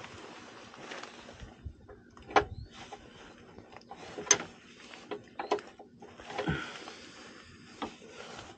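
Wrench, socket and extension clinking and knocking on the metal of a skid steer's battery bracket, in scattered small clicks with a few sharper metallic knocks about two, four and six and a half seconds in.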